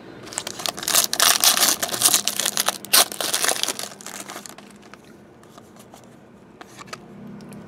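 Foil wrapper of a football trading-card pack being torn open and crinkled by hand, loud and crackly for about four seconds before it stops.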